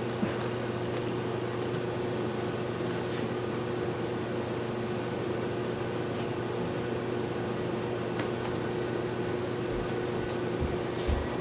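Steady machine hum with an even hiss, and a couple of soft low thumps near the end.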